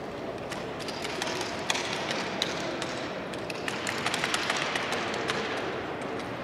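1903 Springfield rifles being spun and handled in exhibition drill: scattered sharp clicks and slaps of hands striking the rifles, bunching into a quick run about four seconds in, over a steady background hum of the hall.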